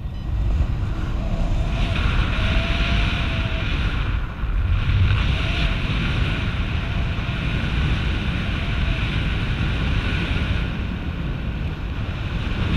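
Wind noise from the airflow over the camera microphone of a paraglider in flight: a loud, steady rush with a heavy low rumble.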